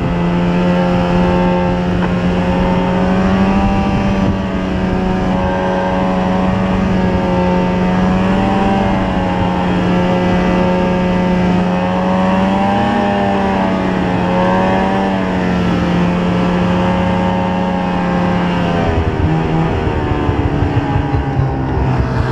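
Snowmobile engine heard from on board, running at a steady cruising speed with its pitch rising and dipping slightly with the throttle, then dropping in pitch near the end as the sled slows. A constant rushing noise of travel runs under it.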